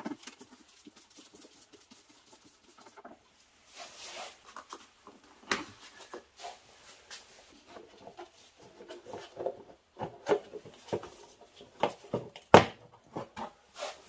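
Gloved hands prising off the plastic engine cover of a BMW E39 530i: scattered small plastic clicks, taps and rustling, with a few sharper knocks, the loudest near the end.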